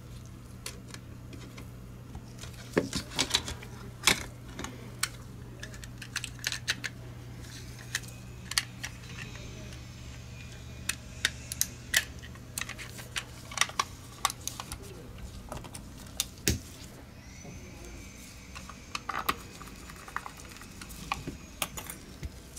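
Irregular sharp plastic clicks and taps from a Logitech G Pro X Superlight mouse being handled and its shell pressed back together during reassembly, with some faint clicks near the end as small screws are picked up off the silicone mat.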